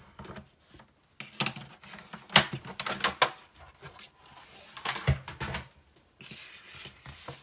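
Heavy patterned craft paper being scored on a paper trimmer and handled on a cutting mat. There is a run of sharp clicks and crisp paper rustles, then a single low thump about five seconds in, and a short sliding rustle of paper near the end.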